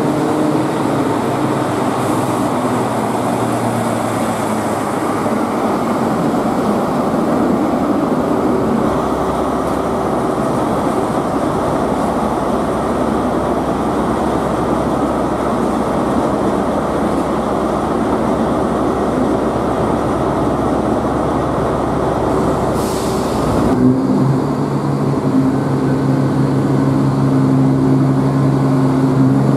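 ScotRail Inter7City HST (Class 43 power cars) departing: the diesel power cars' engines drone steadily as the coaches roll past. About 24 s in the sound changes abruptly to a different steady engine drone with a low hum.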